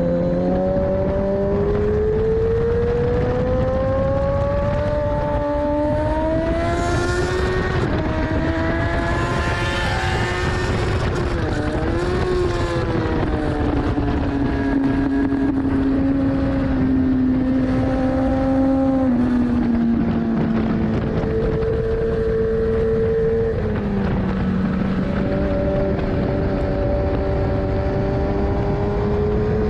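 A 2014 Kawasaki ZX-10R's inline-four engine running hard on track, its pitch climbing slowly over the first several seconds, dipping and recovering quickly around the middle, easing down, then stepping up again near the end. Heavy wind rush on the microphone runs under it.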